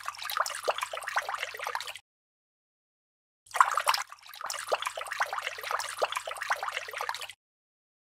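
Liquid poured in a thin stream into a small plastic tube, splashing and fizzing as it fills and foams. The pouring stops about two seconds in and starts again about a second and a half later.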